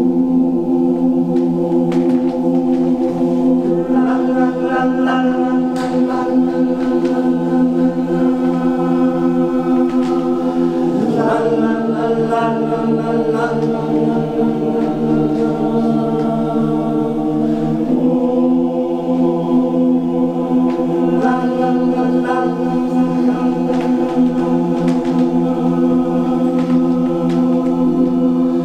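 Male choir singing a cappella in several parts, holding long sustained chords; the harmony shifts about 11 seconds in and again at about 18 seconds.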